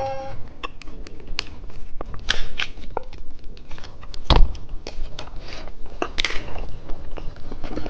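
Plastic snack packaging being handled: scattered crinkles and clicks, with one louder knock about four seconds in.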